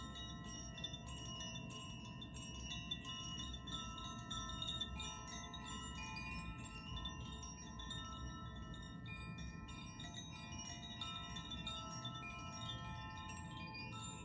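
Tuned sound-healing chimes of the Koshi and Zaphir kind, rung continuously with many small strikes whose clear overlapping tones ring on and blend into one another, over a low steady room rumble.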